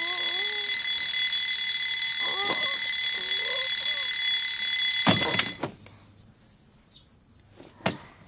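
Alarm clock ringing with a steady, shrill tone, cut off suddenly with a knock about five seconds in as it is switched off. A few sleepy voice-like groans sound underneath the ringing, and a single sharp click comes near the end.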